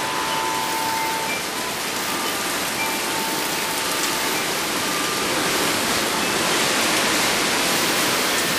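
Heavy thunderstorm rain pouring down in a steady hiss. Wind chimes ring faintly now and then in the first half.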